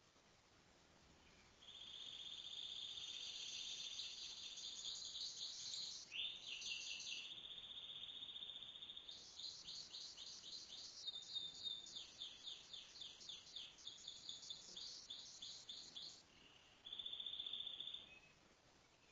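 A songbird singing in long, rapid, high-pitched trills and fast repeated notes, starting about two seconds in, pausing briefly near the end and then trilling once more.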